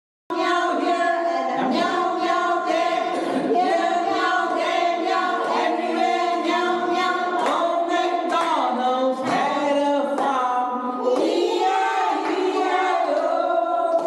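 A group of children singing a song together in chorus, unaccompanied.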